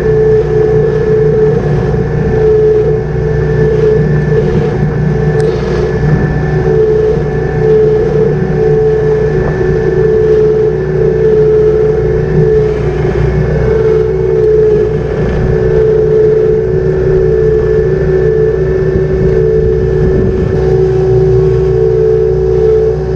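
An engine running steadily at constant speed, a loud even drone with a gently pulsing hum.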